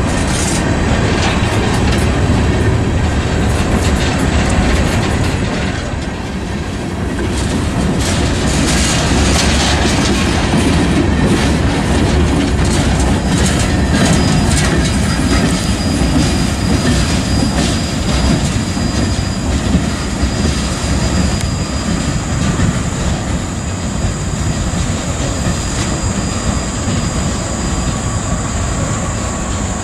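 Coal train hopper cars rolling past at close range: a steady rumble with the clickety-clack of wheels over rail joints. A thin high-pitched wheel squeal joins about halfway through.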